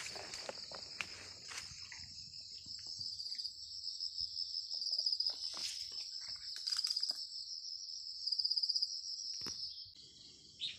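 Insects chirring in a steady high buzz that swells a few times into fast pulsing trills and cuts off near the end. Footsteps and brush rustling through dry vegetation click in the first couple of seconds.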